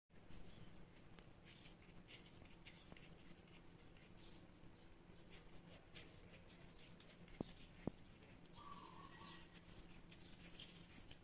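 Near silence with faint soft rubbing of hands pressing and rolling mashed purple sweet potato dough, and two small clicks about seven and a half seconds in.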